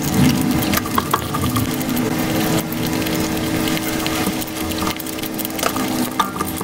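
Close-miked eating sounds of chicken biryani and chicken, sped up: a fast, dense run of wet chewing, smacking and squelching clicks, with a steady low hum underneath.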